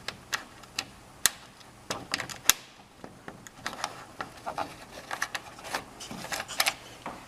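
Light metal clicks and taps of a lock washer and nut being fitted by hand onto a mirror bracket bolt, irregular throughout, with a few sharper clicks in the first three seconds.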